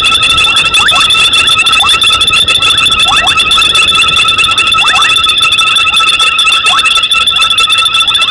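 Loud night frog chorus: steady high-pitched trilling, with short calls sliding down in pitch about once a second, sometimes in quick pairs.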